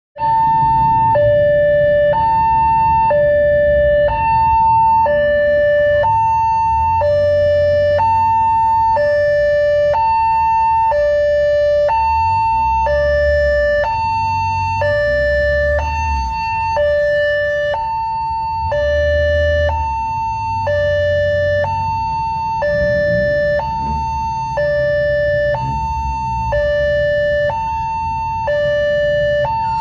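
Railway level-crossing warning alarm sounding a repeating two-tone signal, a high tone and a lower tone alternating with one full cycle about every two seconds, warning that the crossing is closed for an approaching train. Road traffic, motorbikes and cars, rumbles past underneath.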